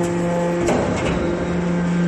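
Hydraulic scrap metal baler running: the steady hum of its hydraulic power unit, briefly broken by a metallic crunch and clatter about 0.7 s in.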